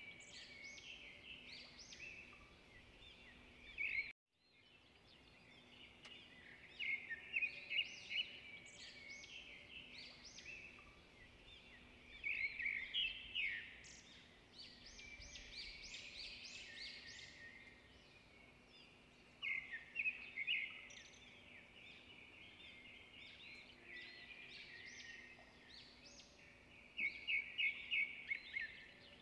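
Small birds chirping and twittering, some calls coming in quick runs, over a faint steady hum. The sound drops out for a moment about four seconds in.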